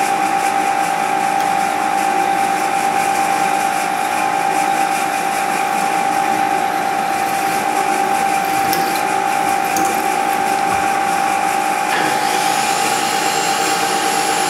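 Milling machine spindle drilling a hole in a small metal part with a small twist drill: a steady high whine throughout. About twelve seconds in, a higher hiss joins the cutting sound.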